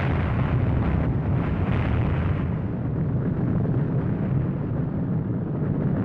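Explosion sound effect: a long, heavy low rumble with a rushing hiss over it, holding steady throughout.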